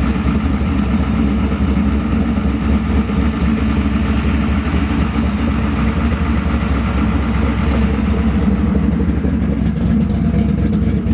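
Chevrolet 406 small-block V8 with an 850 double-pumper carburettor idling steadily through long-tube headers and dual exhaust, with the exhaust cutouts closed.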